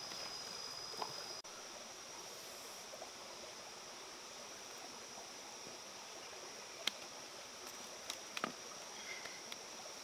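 Steady rush of a rocky stream with a thin, steady high-pitched whine over it. A few sharp clicks come near the end.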